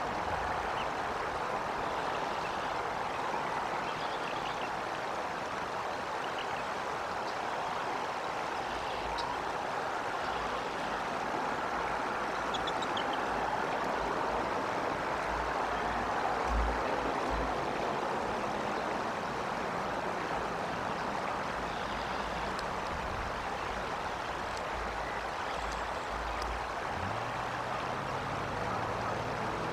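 Steady outdoor rushing noise, like running water, with a few faint high bird chirps scattered through it. Low calls start near the end.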